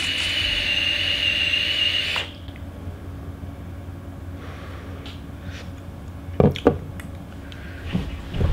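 E-cigarette dripping atomizer being drawn on while firing: an airy hiss with a steady high whistle and the coil's sizzle, cutting off abruptly about two seconds in. A faint exhale follows, and a couple of sharp knocks come about two-thirds of the way through.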